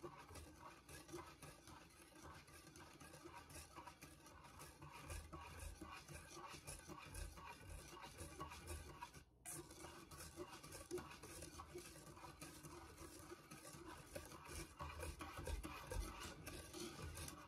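A hand whisk stirring a liquid ice cream base with butterscotch sauce in a stainless steel mixing bowl: faint, continuous scraping and swishing against the bowl.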